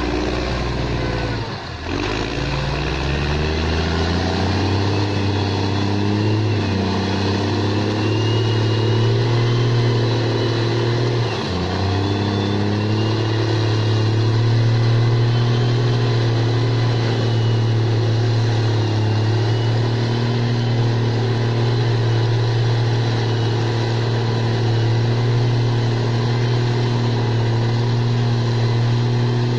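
New Holland TS6.125 tractor's four-cylinder diesel engine working under load while pulling a disc plough. Its pitch dips about two seconds in and climbs back over several seconds, sags briefly again about eleven seconds in, then runs steadily.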